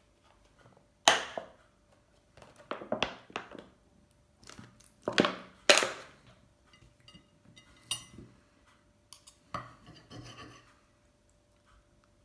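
A plastic squeeze bottle of ketchup squeezed onto toast: several short, loud squirts and crackles of the bottle in the first half. Later comes a quieter scraping of a knife and fork on a plate as the toast is cut.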